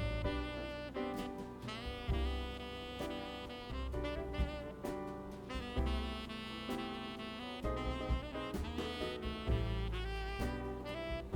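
Background jazz music with a saxophone carrying the melody over bass and light drums.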